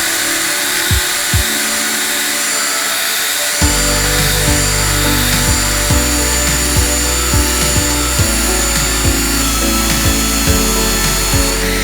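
A small power tool, like a drill, running steadily with a high whine that stops at the end. Background music with a steady beat plays underneath, and a bass line comes in about four seconds in.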